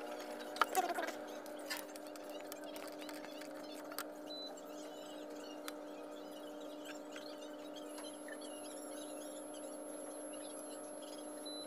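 A steady electrical hum with a few soft clicks and rustles as a braided cord is handled and pushed through a hole. The loudest click comes about a second in.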